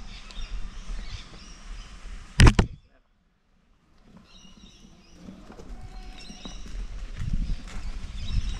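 Riding noise from an electric unicycle on a rocky trail: uneven bumping and wind on the camera microphone, with a loud sharp clatter about two and a half seconds in. The sound then drops out completely for about a second before the bumping returns, with birds chirping high over it.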